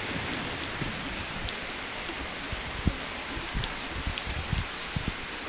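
Very heavy rain pouring down as a steady, dense hiss, with scattered louder drops knocking close by.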